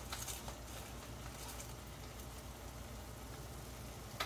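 Faint, steady sizzling of thick tomato puree cooking in a frying pan over high heat, with a steady low hum underneath. A single short click near the end.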